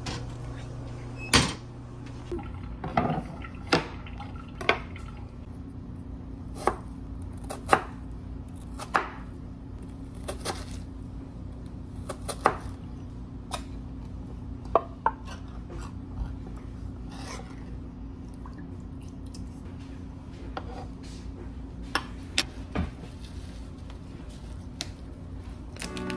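Food preparation: scattered knocks and clinks of a kitchen knife on a wooden cutting board and a metal fork working in a tin can and against a ceramic bowl, over a steady low hum.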